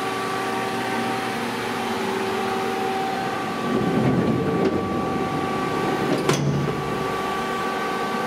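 Steady hum of a powered-up CNC lathe standing idle, made of several steady tones over a low noise. A louder rushing noise swells about four seconds in, and there is a sharp click just after six seconds.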